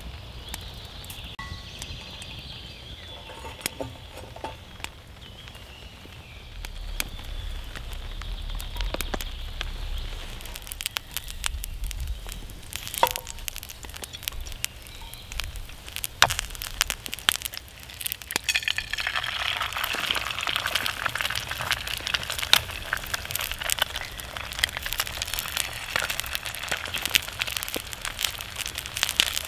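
Campfire crackling under a steel frying pan. About two-thirds of the way in, a steady sizzle joins it as eggs fry inside a hollowed-out slice of bread in the pan.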